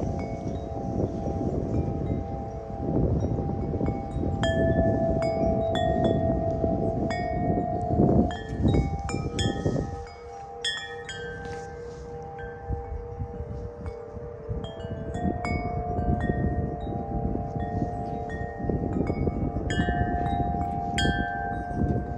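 Wind chimes ringing in the wind: the clapper strikes the tubes again and again, and their long notes ring on and overlap. Wind rumbles on the microphone throughout, easing off for a couple of seconds about halfway through.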